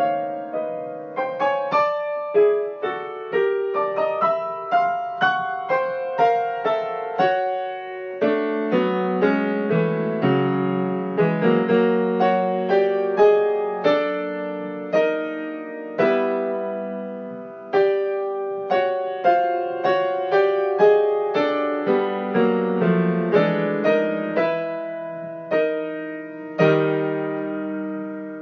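Solo piano improvising in struck chords: open fifths with a doubled bass note low down against harmonic thirds and fourths higher up, shifting by semitones and tritones. The chords come in an irregular rhythm, each one ringing and dying away before the next.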